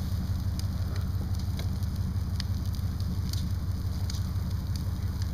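A boat burning in an open fire, with a steady low rumble and scattered crackles and pops.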